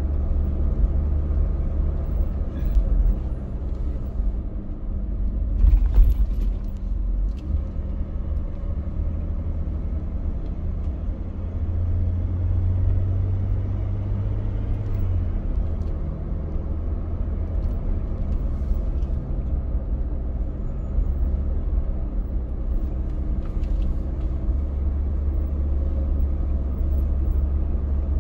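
A car driving on a road, heard from inside the cabin: a steady low rumble of engine and tyres. There is a brief louder knock about six seconds in.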